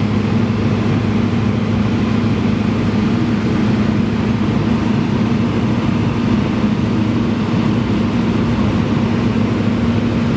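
Cessna 172 light aircraft's piston engine and propeller droning at a steady, unchanging pitch.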